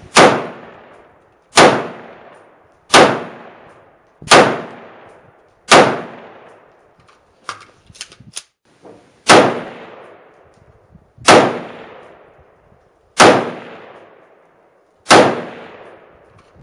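Smith & Wesson M&P15T AR-15 rifle in .223/5.56 with a stock A2 birdcage flash hider firing single semi-automatic shots: five about a second and a half apart, then after a short pause with a few light clicks, four more about two seconds apart. Each shot is followed by a long echoing tail under the roofed range.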